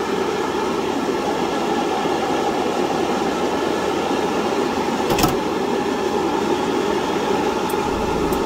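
Steady mechanical hum with a rush of air from airbrush painting equipment running, with one sharp tap about five seconds in.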